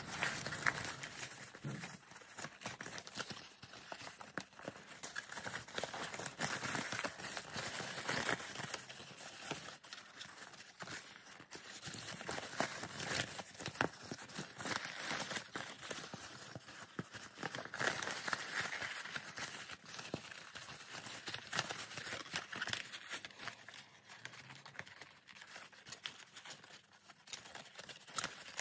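Creased printer paper of an origami magic ball crinkling and crackling as hands squeeze and flex its folds, a steady run of many small crackles.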